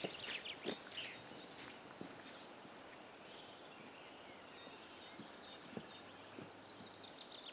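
Footsteps on a rocky dirt trail, a few faint steps in the first second fading as the walker moves away, then quiet outdoor ambience with small birds chirping near the start and again near the end.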